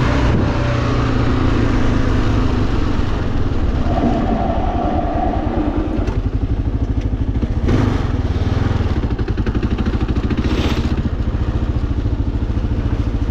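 Kawasaki KLR650's single-cylinder four-stroke engine running steadily while riding, with two brief rushes of noise in the second half.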